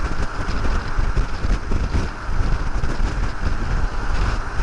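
Wind noise buffeting a cheap foam-capped external microphone on a motorcycle riding at about 90 km/h with the helmet visor open, an uneven low rushing over the vehicle's running noise.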